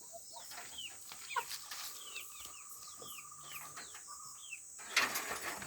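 Domestic fowl clucking and calling: repeated short calls, with a longer steady call through the middle. A constant high-pitched insect drone sits behind them, and there is a brief scuffle of noise near the end.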